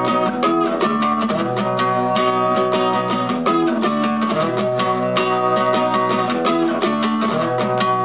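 Acoustic guitar strummed in a steady rhythm, playing held chords that change a few times.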